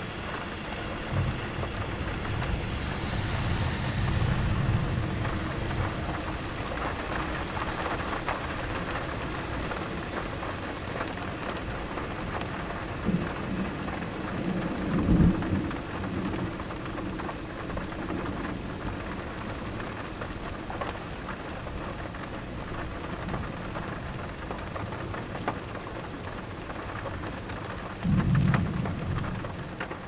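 Steady rain through a thunderstorm, with thunder rumbling: a rumble about four seconds in, the loudest around the middle, and another strong one near the end.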